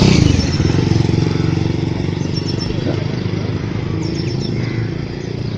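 Motorcycle engine receding just after passing by: its pitch drops at the start, then a steady engine note fades slowly. Birds chirp faintly in the background.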